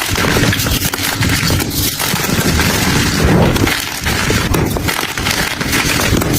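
Brittle, crumbly material being crushed, with a dense, continuous crunching and crackling that grows fuller a little past the middle.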